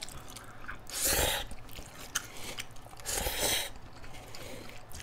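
Two loud slurps of instant cup-ramen noodles and broth, about a second in and again about three seconds in, with faint mouth clicks between.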